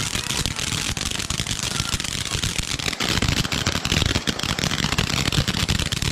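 Ground fireworks going off together: fountains hissing out sparks over a rapid, continuous crackle of pops and small bangs. The popping grows denser and louder from about halfway through.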